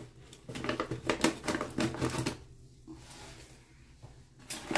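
Plastic bag of Viva Verde cat litter crinkling and crackling as it is handled to be opened: a quick run of crackles for the first couple of seconds, a quieter stretch, then more near the end.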